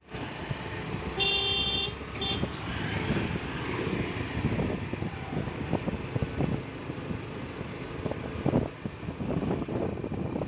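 Steady road and wind noise of a moving vehicle, with a vehicle horn honking twice about a second in, first a longer honk and then a short one.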